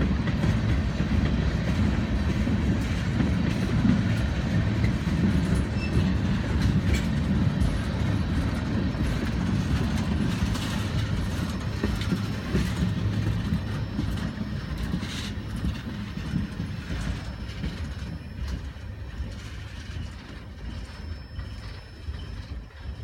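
Freight train cars rolling past, steel wheels rumbling on the rails with a few sharp clanks, growing gradually fainter over the second half as the train moves away.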